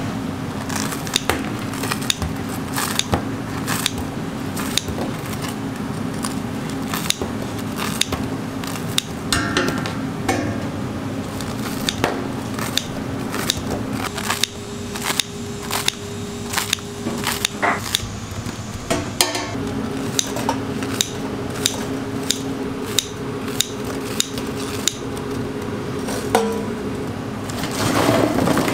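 Kitchen scissors snipping crisp fried dough sticks, with the cut pieces clicking and dropping into a stainless steel tray, over a steady low hum. Near the end, hands toss the pile of crunchy pieces, giving a dense crackling rustle.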